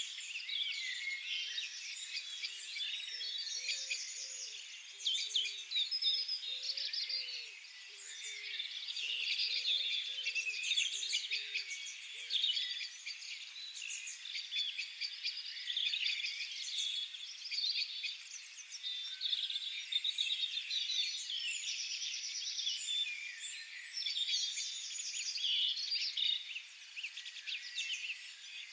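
A dense chorus of many small birds singing, chirping and trilling all at once. From about a second and a half in until about twelve seconds, a low hooting bird call repeats in short notes, a couple a second, under the chorus.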